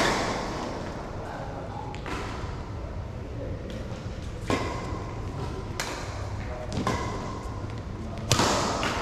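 Badminton rackets striking a shuttlecock in a doubles rally: sharp cracks every second or two, each ringing on in a large hall. The loudest, near the end, is a jump smash.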